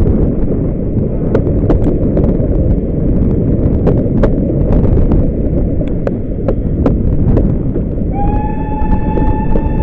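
Wind rush and running noise of a steam-hauled train at speed, heard from an open carriage window, with scattered sharp clicks. About eight seconds in, the steam locomotive's whistle sounds and holds one steady high note.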